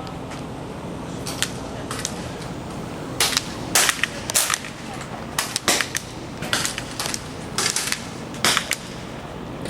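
Air rifles firing pellets on a benchrest line: a dozen or so sharp cracks at irregular intervals, several shooters firing independently, with some shots close together.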